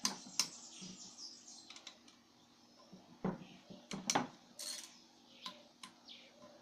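A socket ratchet and metal tools clicking and clinking while the camshaft bearing cap bolts on a cylinder head are worked loose: scattered sharp clicks, loudest just after the start and again around four seconds in.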